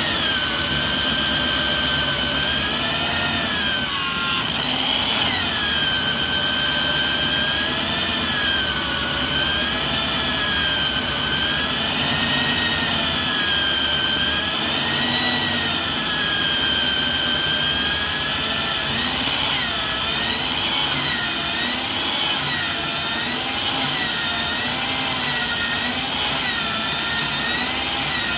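Concrete core drilling machine running steadily, its motor whining high with the pitch wavering up and down every second or two; the pitch dips briefly about four seconds in.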